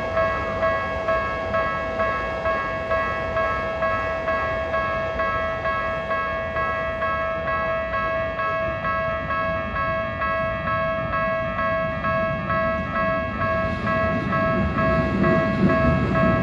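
Japanese level-crossing warning bell ringing its steady "kan-kan" at about two strikes a second. Near the end the rumble of an approaching Keikyu train grows louder beneath it.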